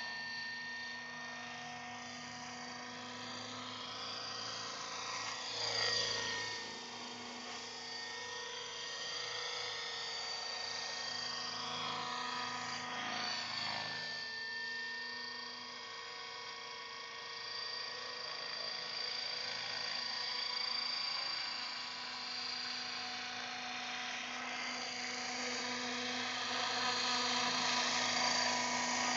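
Align T-Rex 600 radio-controlled helicopter in flight: a steady high whine from its drivetrain and rotors. The pitch swoops up and down as it passes, at about six seconds and again at about thirteen seconds, and it grows louder near the end as it comes in close.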